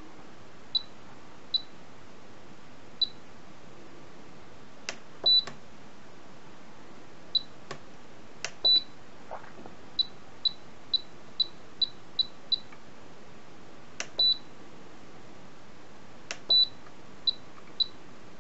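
Spektrum DX6i transmitter beeping as its menus are scrolled through: short high beeps, including a run of seven at about two a second, and four slightly longer beeps, with a few light clicks among them.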